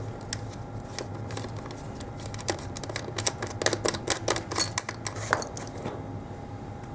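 Irregular small clicks and knocks of cable connectors being unplugged, thickest in the middle, over a steady low hum.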